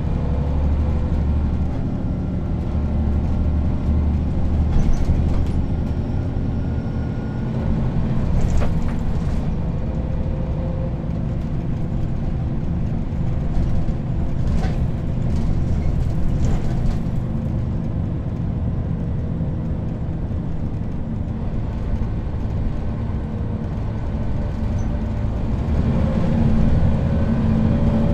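Neoplan N 4016 city bus heard from inside the passenger cabin while driving: a steady engine drone with the whine of its ZF automatic transmission, the whine rising in pitch near the end. A few short rattles from the bus body break in now and then.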